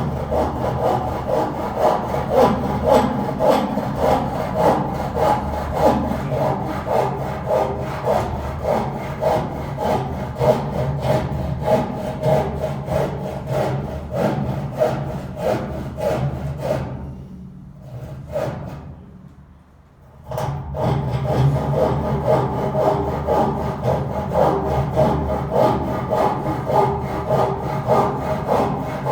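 A saw cutting through wood in steady rhythmic strokes. It stops for a couple of seconds a little past halfway, then starts cutting again.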